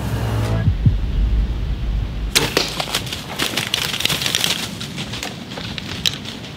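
A bow shot at a whitetail buck at close range: a dull low thump just under a second in. From about two seconds in, the hit deer runs off through dry leaves and brush in a long run of sharp cracks and rustles that thin out near the end.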